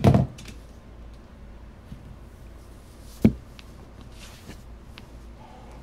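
Handling noises at a work table: a thump right at the start and a single sharp knock about three seconds in, with a few faint ticks between, as a trolling lure and its floss are picked up and handled on a cutting mat.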